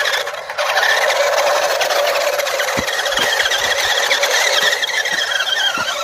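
Electric drive motors of a homemade remote-control 4x4 pickup whining as it drives. It is a steady, high-pitched whine that gets louder about half a second in.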